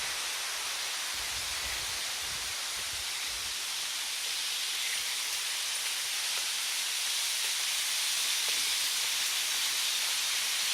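Steady hiss of rushing water, growing slightly louder toward the end. Low wind rumbles on the microphone in the first few seconds.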